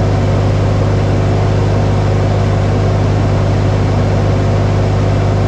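A vehicle engine running close to the microphone at a constant, steady speed, a loud even drone with a strong low hum.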